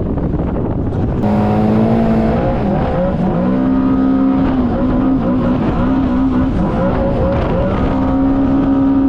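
Yamaha GP1800R WaveRunner's four-stroke engine running under throttle over a steady rush of noise. From about a second in its note is louder and climbs, then wavers up and down in pitch as the throttle changes through turns.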